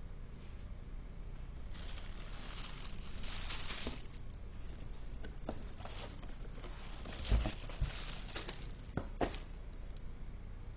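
Thin translucent wrapping sheet rustling and crinkling as it is pulled back from a boot in a cardboard shoebox: a long rustle about two seconds in, then scattered crackles and a few soft knocks.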